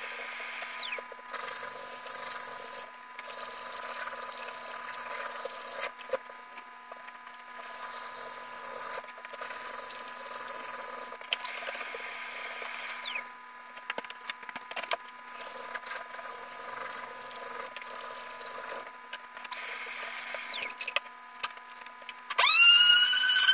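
Shop vacuum running steadily while its hose sucks sawdust off a workbench, with small clicks and rattles of debris and a high whistle that comes and goes three times. Near the end a hand-held electric sander with a round pad switches on and winds up quickly to a much louder steady whine.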